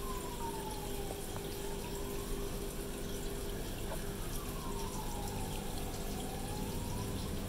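Aquarium pump and circulating water running steadily with a low hum. A faint tone slowly dips and rises again, twice.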